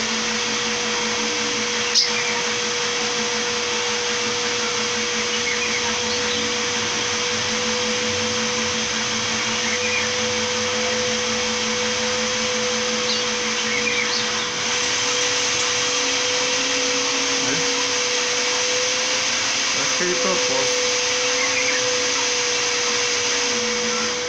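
Electric kitchen blender running at a steady speed, a loud even whir with a steady hum, a little louder from about halfway through and cutting off at the very end. A few faint calls of a caged rufous-browed peppershrike show through it.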